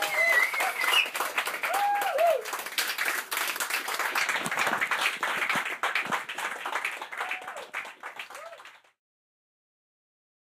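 Audience clapping, with a few voices calling out in the first couple of seconds; it cuts off abruptly about nine seconds in.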